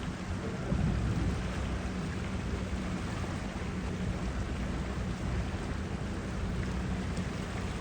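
Boat motor running steadily at cruising speed, a low hum under water and wind noise.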